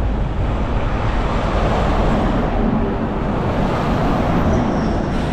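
Strong wind rushing over the microphone while cycling beside a road, mixed with the rumble of passing traffic; a steady, loud noise with no pauses.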